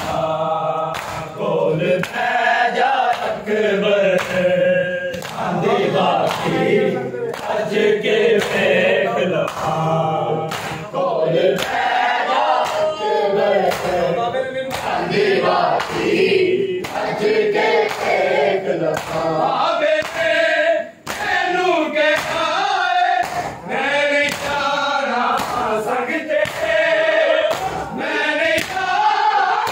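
Group of men chanting a noha (Muharram lament) together, kept in time by sharp hand strikes on bare chests (matam), about one and a half strikes a second.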